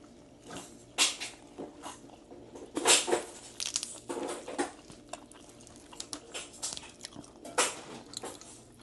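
Close-up chewing and biting of crispy fried chicken-wing naem (Thai fermented meat): wet mouth sounds with sharp crunches at irregular intervals, the loudest about three seconds in.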